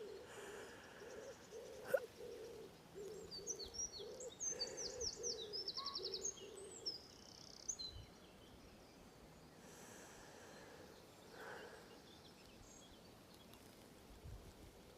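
Dawn birdsong, quiet: a bird gives a run of soft, low hooting calls over the first several seconds while small songbirds chirp and trill higher up. The birds fall quiet after about seven seconds, leaving faint outdoor background noise.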